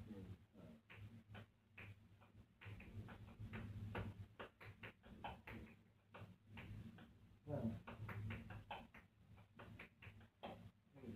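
Tap shoes' metal taps striking a tile floor in quick, uneven hoofing rhythms, faint, over a steady low hum. A brief low-pitched sound comes about two-thirds of the way through.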